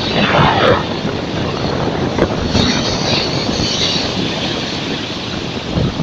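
Black Sea surf on a pebble beach: a wave breaks right at the start, and its foam hisses up the shore a couple of seconds later, over a constant rush of water and wind buffeting the microphone.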